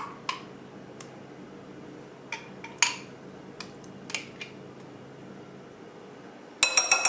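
Spoon scooping vegan mayonnaise out of a jar into a glass mixing bowl: scattered light clicks and scrapes, then a quick run of loud clinks near the end as the spoon knocks against the bowl.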